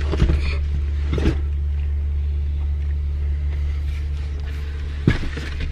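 Car engine idling steadily, heard from inside the cabin, with a few knocks as cardboard boxes are loaded into the cargo area behind the seats, the sharpest near the end.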